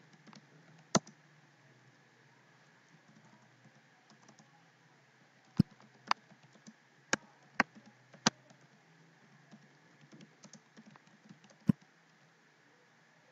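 Computer keyboard being typed on in irregular keystrokes. A handful of sharper key clicks come about a second in, a cluster between about five and eight seconds in, and one near the end, over a faint low hum.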